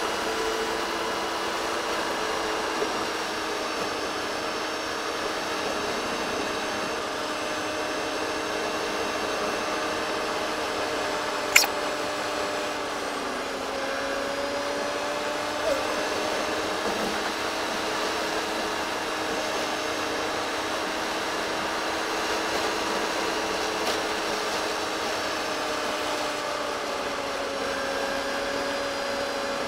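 A car's engine and gearbox buzzing steadily, sped up four times so it comes out as a high-pitched whine whose pitch drifts slowly up and down. The buzz comes from a gearbox in poor condition. There is one sharp click about twelve seconds in.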